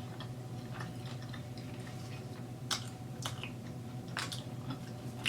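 Close-miked chewing of a bite of chicken wing, wet and squishy, with a few sharp mouth clicks and smacks about three and four seconds in.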